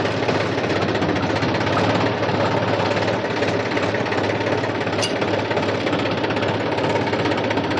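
New Holland tractor's diesel engine running steadily with a fast knocking beat, a brief click about five seconds in. No noise comes from the oil-immersed brakes, which were freshly cleaned and refilled with UTTO oil after low, spent oil had made them noisy.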